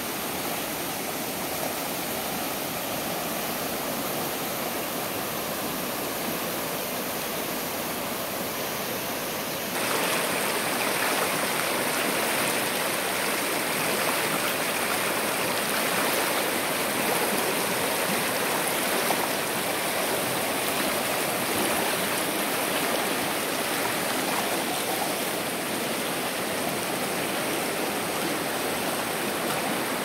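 River water rushing over rocks in shallow rapids: a steady rush of flowing water that gets louder about ten seconds in.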